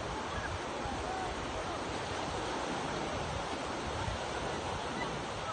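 Sea waves washing onto the shore in a steady wash, with wind rumbling on the microphone.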